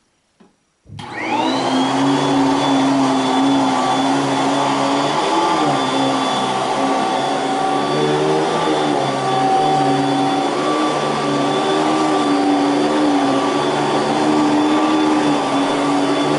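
Corded electric vacuum cleaner switched on about a second in, its motor whine rising quickly as it spins up, then running steadily with a slightly wavering hum.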